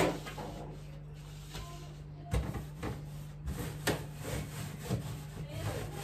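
Cloth wiping the plastic inside of a refrigerator, with scattered light knocks and clicks of shelves and drawers being handled from about two seconds in.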